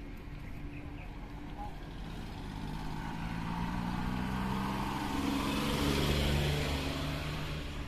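A small van driving past on the street, its engine and tyre noise growing louder to a peak about six seconds in, then fading as it goes by.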